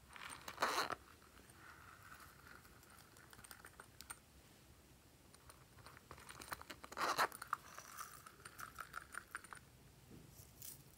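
A small silicone backpack-shaped pouch handled and its zipper drawn open, twice: each time a short crackle, then a couple of seconds of ticking rasp. A light patter of sequins tipped out near the end.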